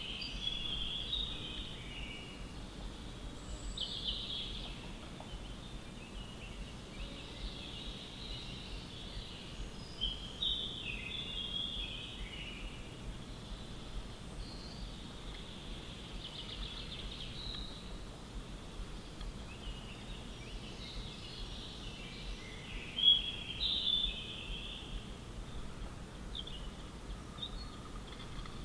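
Birds chirping and calling on and off over a faint steady background noise, with one louder call late on.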